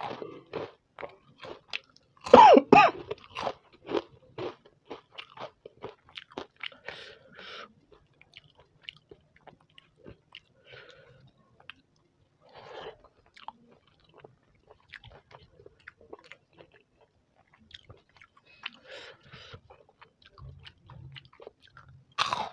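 Close-miked eating: loud crunching bites of fried papad about two seconds in, followed by a run of crisp chewing. The chewing then grows sparser and quieter as khichdi is eaten by hand, and there is another burst of bites near the end.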